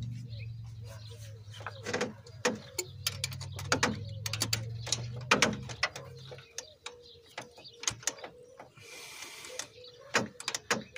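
Metal hand tools clicking and clanking against engine parts: many sharp, irregular clicks of wrench and socket work on the top of a 5.7-litre V8. A low steady hum underneath stops about six seconds in, and there is a brief hiss near the end.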